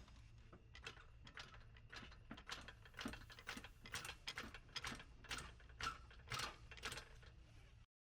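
Faint, irregular metallic clicking, about two to three clicks a second, as a jack under the front lower ball joint is worked to raise the hub. It stops abruptly just before the end.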